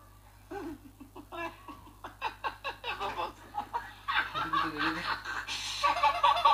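Laughter in quick repeated pulses, building and getting louder over the last couple of seconds.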